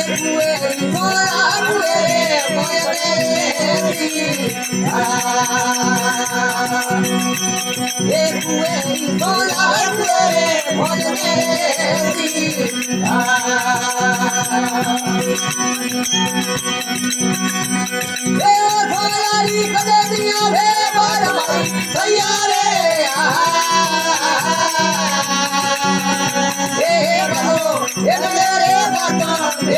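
Rajasthani folk devotional bhajan: a sung melody in phrases over a steady drone from the desi veena, with continuous fast rattling percussion keeping the rhythm.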